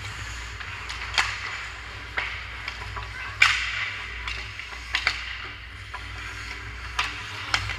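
Ice hockey skates scraping and carving on the ice, with sharp clacks of sticks and puck every second or so; the loudest is a crack followed by a short scraping hiss about three and a half seconds in. A steady low hum runs underneath.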